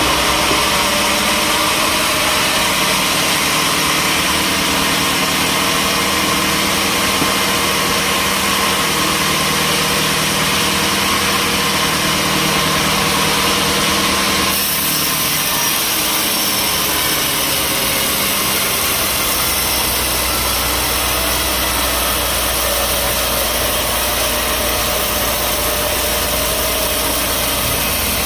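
Sawmill machinery's engine running steadily, with an abrupt change in tone about halfway through.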